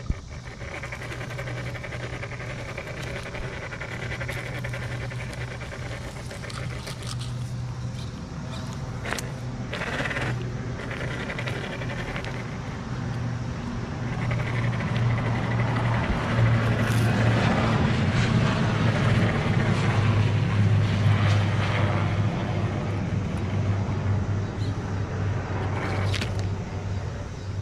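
Electric motor and gear drivetrain of a scale RC rock crawler whining as it creeps over river rocks, getting louder about halfway through as it climbs. A few sharp clacks of tyres or chassis against stone.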